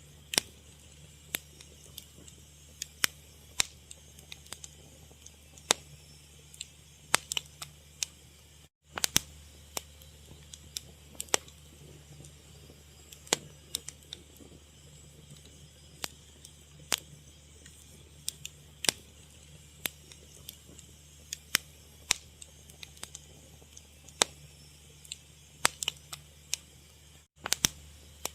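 Fire crackling: irregular sharp pops and snaps over a low steady hum. The sound cuts out for an instant twice, about a third of the way in and near the end.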